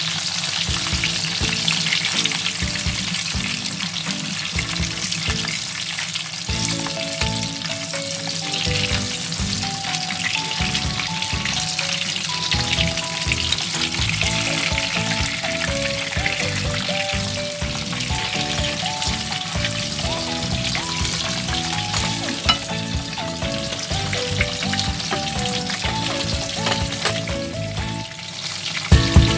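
Hot dogs sizzling steadily as they fry in a frying pan, with a wooden spatula now and then knocking and scraping as it turns them. A simple melody plays underneath.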